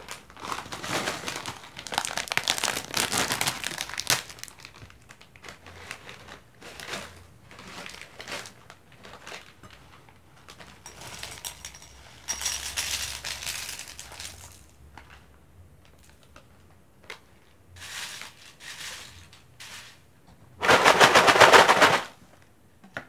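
Plastic snack packaging crinkling as a bag is torn open and shaken, and dry puffed corn snack pieces pouring into a glass bowl and a plastic jar with a rapid rattling clatter. The clatter comes in several bursts, the loudest and densest near the end.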